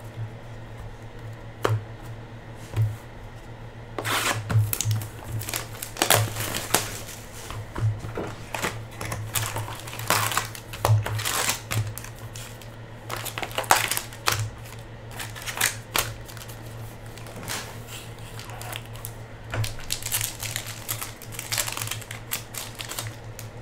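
Foil trading-card pack wrapper crinkling and tearing as it is opened by hand, with cards being handled, the crackling irregular and denser from about four seconds in. A steady low hum runs underneath.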